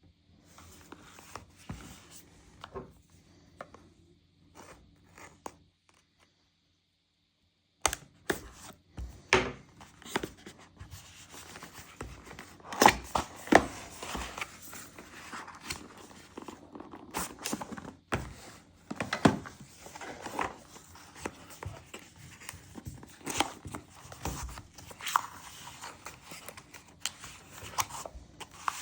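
Packaging of a DJI Osmo Action 6 camera kit being opened and handled: tearing and crinkling of wrapping, cardboard scraping and light knocks. The sounds are sparse and faint at first, then drop out completely for a moment about six seconds in, and come back denser and louder.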